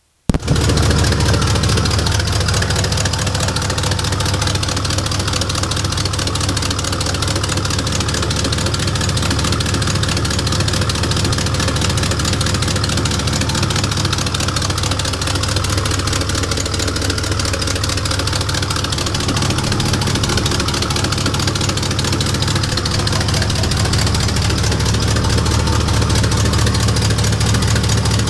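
Engine idling steadily with a huge exhaust leak: a loud, rapid, even puffing and ticking from the leak over the engine's low hum.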